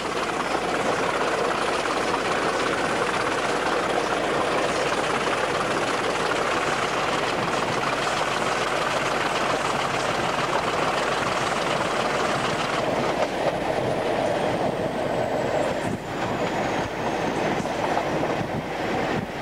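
Train running at speed, heard from on board: a steady rumble and rush of wheels on the track with clattering over rail joints.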